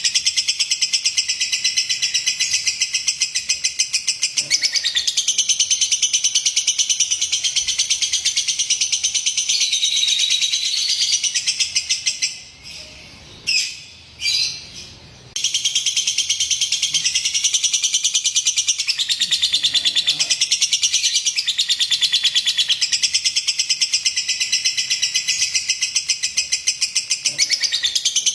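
Lovebird singing a long, rapid, high-pitched chattering trill. It breaks off about twelve seconds in, gives two short chirps, and resumes about three seconds later.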